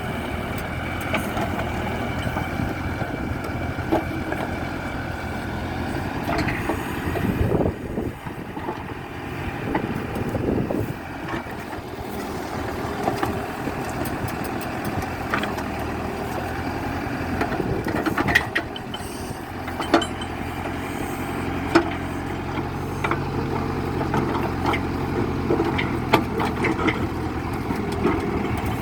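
Diesel engine of a Mahindra backhoe loader running under changing load while it digs, with sharp knocks now and then from the working machine.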